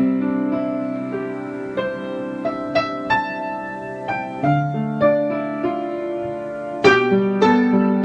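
Soft background piano music: single notes and chords struck at an unhurried pace, each left to ring and fade.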